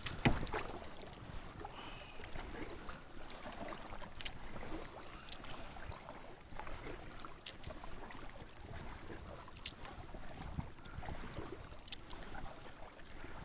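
Kayak paddle dipping and splashing in calm lake water, with small drips and ticks of water, over light wind on the microphone. A louder thump comes right at the start.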